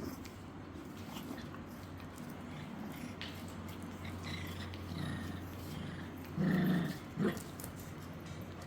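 Shih Tzu puppies growling softly, with a louder short puppy sound about six and a half seconds in and a brief one just after.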